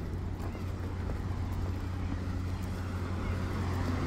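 Road traffic: a motor vehicle's engine running close by with a steady low hum under the rush of tyres and road noise.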